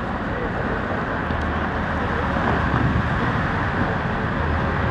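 City street traffic: a steady wash of passing cars, growing a little louder about halfway through.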